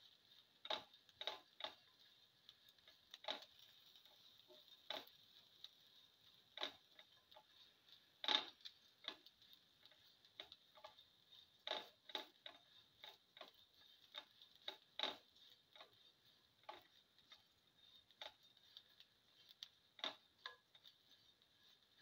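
Spatula clicking and scraping against the pan while sautéing sliced onions and cumin seeds: sharp irregular taps, about one every second or two, over a faint steady high hiss.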